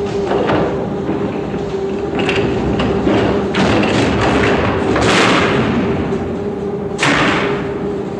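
Thumps and knocks of loads being handled as an underground mail train is unloaded in a sorting office, over a steady machinery hum. A louder clatter comes about five seconds in and a sharp bang about seven seconds in.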